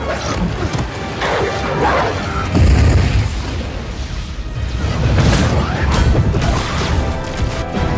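Action-film battle soundtrack: orchestral score under fight impacts, with a heavy boom about two and a half seconds in as a beam of light strikes the ground, then loud crackling lightning effects in the last few seconds.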